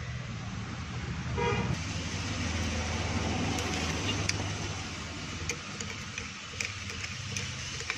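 Steady background traffic hum of passing vehicles, with a short horn toot about a second and a half in. A few light clicks from parts being handled are scattered through the second half.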